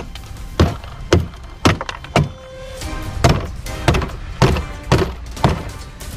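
Machete chopping into the shell of a hollow float, hard thunks about two a second with a short pause about two and a half seconds in.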